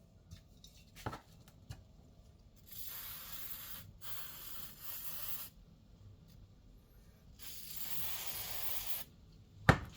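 An aerosol can spraying in three bursts of a second or so each, hissing. A single sharp knock near the end is the loudest sound, with a few light clicks early on.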